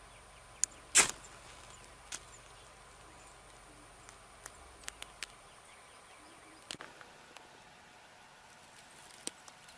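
A ferrocerium rod struck once with a striker about a second in: a short, sharp rasp that throws sparks onto waxed jute and lights it. A few faint clicks follow.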